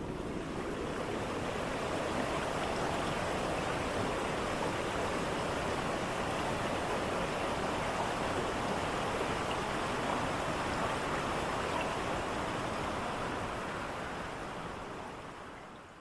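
Loup of Fintry waterfall on the River Endrick: water falling and rushing in a steady, even noise, fading out near the end.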